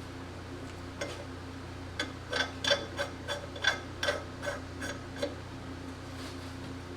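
About a dozen light metallic clinks and taps in quick, irregular succession, each ringing briefly at the same pitches, over a steady low hum: metal parts being handled and knocked together.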